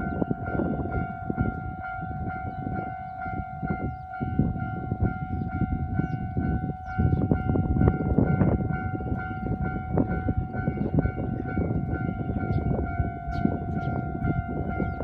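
Japanese level crossing's electronic warning bell sounding over and over in an even rhythm, over the low rumble of a train on the line.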